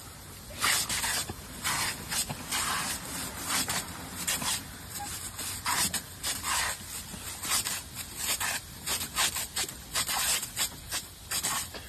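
A jet of water hissing and splattering while dogs bite and snap at the stream, in irregular bursts several times a second.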